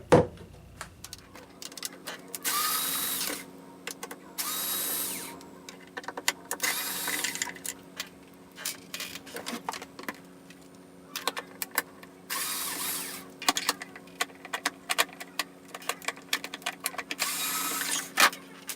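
Cordless power screwdriver whirring in about five short bursts of roughly a second each as it backs the casing screws out of a water ionizer. Sharp clicks and taps of the screws and tool come between the bursts.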